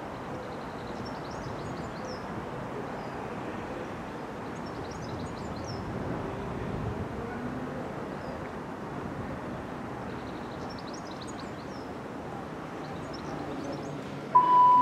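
Birds chirping in short bursts over steady outdoor railway background noise. Near the end a station public-address chime plays two falling notes, the lead-in to an announcement.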